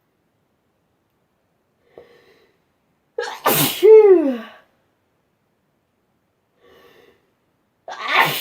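A person sneezing twice: a faint intake of breath, then a loud sneeze about three seconds in, a sharp burst with a falling 'choo'; another faint breath, and a second sneeze starting near the end.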